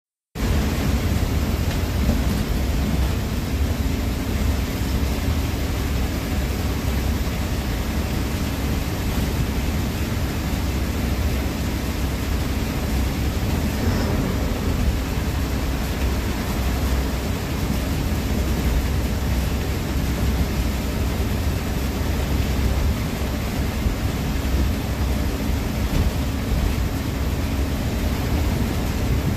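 Steady engine drone and road rumble of a GSRTC bus under way on the highway, heard inside the cabin, heaviest in the low end. It cuts in abruptly just after the start.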